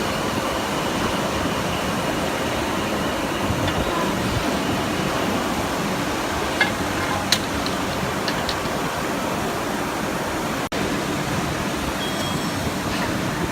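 Steady rushing noise, like a workshop's machinery running, with a few sharp clicks a little past halfway.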